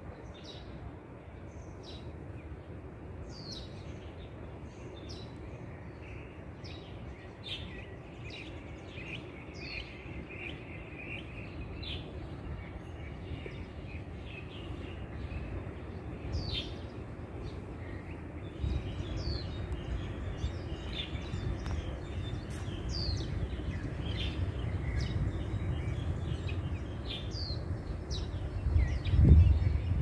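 Small birds calling: many short, sharp chirps that drop quickly in pitch, scattered throughout, with a brief run of quicker lower notes early on. Under them is a low rumbling noise that grows louder in the second half, with a thump near the end.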